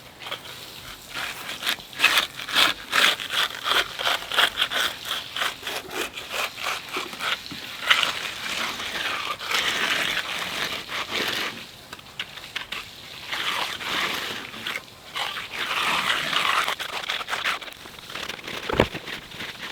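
Steel hand edger scraping along the edge of a freshly poured concrete slab in repeated short strokes, with a few longer drawn-out passes, rounding off the edge of the still-wet concrete. A single knock near the end.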